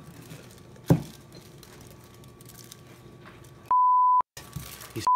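An edited-in electronic censor bleep: a steady one-pitch tone of about half a second, with the room sound cut to silence around it. An identical second bleep starts right at the end. About a second in there is one sharp knock as the upturned glass mixing bowl is handled.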